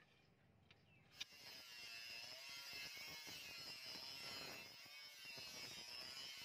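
Electric angle grinder with a flap disc grinding the steel of a rebar sword blade: a steady high whine of motor and abrasive on metal that starts about a second in, just after a sharp click.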